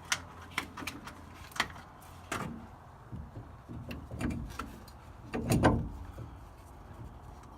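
Scattered metal knocks and clunks, about half a dozen, from work on a truck's leaf spring and lift block; the loudest clatter comes about five and a half seconds in.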